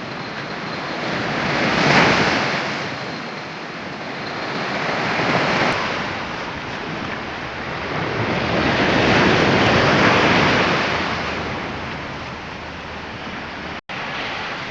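Sea waves breaking on the shore, the surf swelling and fading three times.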